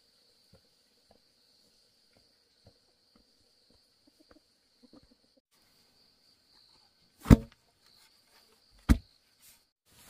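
Steady high-pitched insect chirring, with a few faint ticks. Near the end there are two loud thumps about a second and a half apart.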